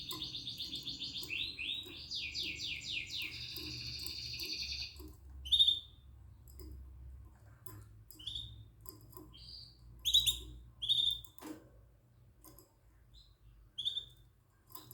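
Yellow mosaic canaries: a fast rolling trill of song that stops about five seconds in, followed by short single chirps every second or so.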